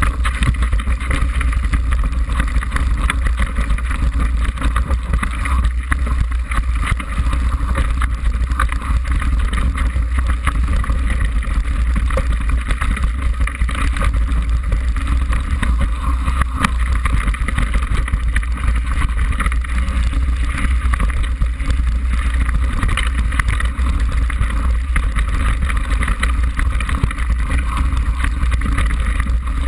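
Mountain bike descending a rough, stony trail: a continuous rumble of wind and tyres on the camera's microphone, with frequent rattles and knocks from the bike over rocks.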